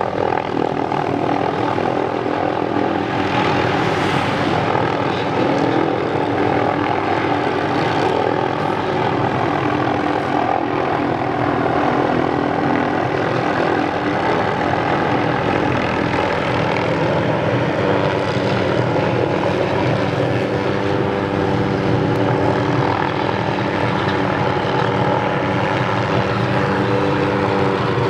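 Tree-trimming helicopter with a suspended saw running steadily, the engine and rotor giving a dense, unbroken mix of steady tones over a constant rushing noise.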